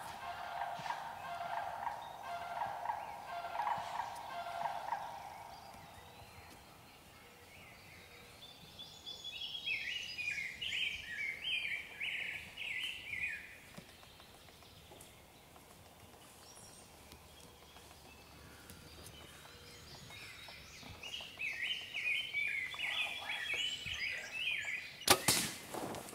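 Eastern wild turkey gobblers gobbling twice, each gobble a quick run of notes, about ten seconds apart. A single sharp bang near the end is the loudest sound.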